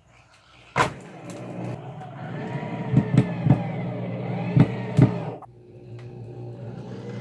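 Corded power drill running in spurts while fastening the window frame, its motor speed rising and falling, with several sharp knocks on the frame. The motor stops abruptly about five and a half seconds in.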